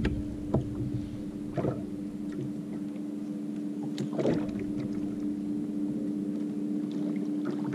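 A few light knocks and clunks of gear being handled aboard a fishing kayak, over a steady low hum.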